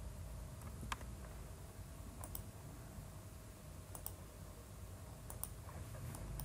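Sparse, quiet clicks of a computer mouse and keyboard, about eight in all, several in quick pairs, over a faint steady hum.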